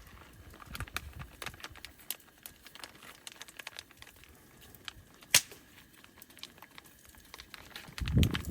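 Packaged food pouches crinkling and rustling as they are handled and opened, with many small clicks. One sharp click comes about five seconds in, and a low thump near the end.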